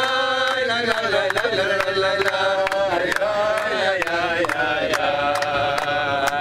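Several voices singing a chant-like song together, with steady rhythmic hand clapping about three to four claps a second.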